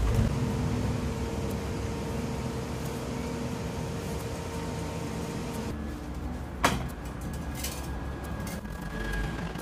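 Stick-welder arc crackling steadily as the steel sprocket is welded onto the wheel hub, stopping about five and a half seconds in. A sharp click follows about a second later.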